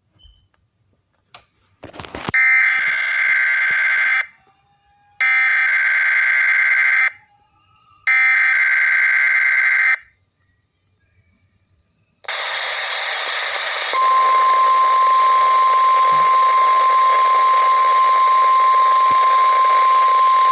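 Emergency Alert System test tones from a weather radio: three short bursts of SAME header data, each about two seconds long, after a few clicks. After a pause and a moment of hiss, the steady 1050 Hz alert tone starts and holds.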